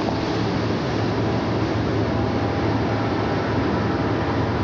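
Steady rumble and hiss of a tugboat's diesel engine and the water it pushes aside as it passes close by, with a low hum under it.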